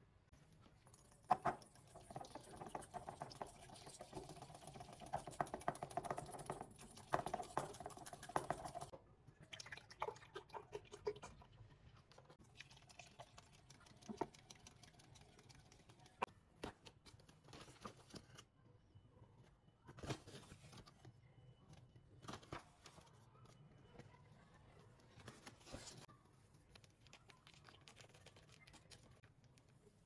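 Wire whisk beating egg mixture in a glass bowl: rapid clicking and tapping against the glass for several seconds, then scattered clinks and short bursts of whisking.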